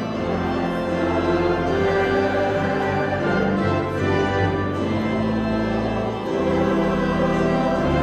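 A church choir singing with pipe organ: long held chords over a deep bass line, changing every second or two.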